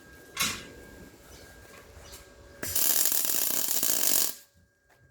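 MIG welder arc crackling in one steady burst of about a second and a half as a steel locator lug is welded onto a car's front cross member, after a short crackle about half a second in.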